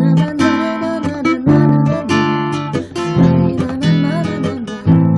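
Acoustic guitar strumming chords in a steady rhythm, an instrumental passage between verses of a song in A minor.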